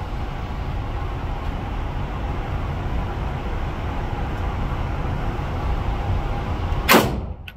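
Steady low background rumble, then a single loud shot from a scoped bolt-action rifle about seven seconds in.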